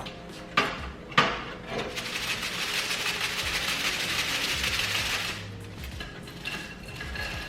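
Two knocks on a cutting board, then about three seconds of steady crunching and scraping as a blade cuts through a crisp grilled quesadilla.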